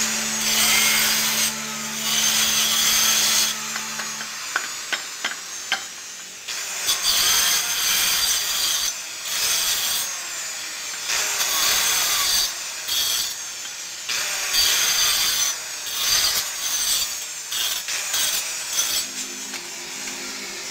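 Handheld electric stone cutter with a cutting disc grinding through small pieces of stone in repeated short passes, each a high, gritty screech of a second or two with pauses between.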